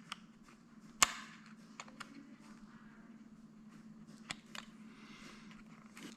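Scattered small, sharp clicks and ticks as a scalpel picks and cuts at the glued centre dome of a car door speaker cone, with one louder click about a second in.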